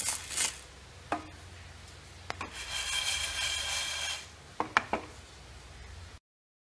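Dry lentils swishing and rattling across a nonstick frying pan as it is shaken and stirred during dry-roasting, with a few sharp clicks of grains or the spatula against the pan. Two rushes of swishing, at the start and in the middle; the sound cuts off suddenly near the end.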